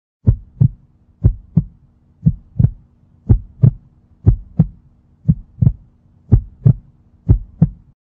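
Heartbeat sound effect: a low double thump, lub-dub, repeating about once a second, eight beats in all, over a faint steady hum.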